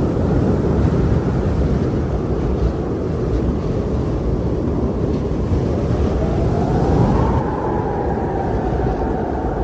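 Strong wind blowing with a low, steady rumble, and a faint whistling howl that rises about six seconds in and then slowly sinks.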